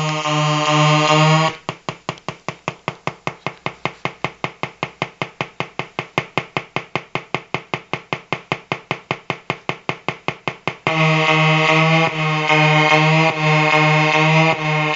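Electrical interference noise from a battery-powered colour-changing LED lamp: a loud, pulsing electronic buzz that breaks off about a second and a half in into an even ticking of about six clicks a second, then returns as a buzz near the end.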